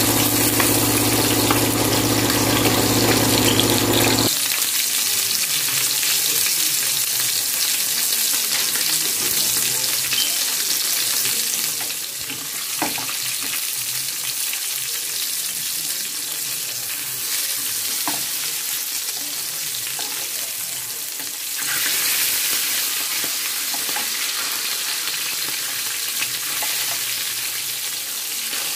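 Whole masala-marinated mackerel sizzling in hot oil in a ridged grill pan, a steady high hiss that dips a little in the middle and comes back up near the end. Over the first four seconds a steady low mechanical hum runs underneath and then cuts off suddenly.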